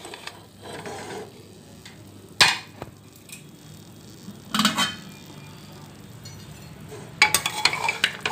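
Metal ladle knocking and scraping against the inside of an open pressure cooker while stirring the cooked mutton: a single clink, then a short cluster a couple of seconds later, then a quick run of clinks near the end.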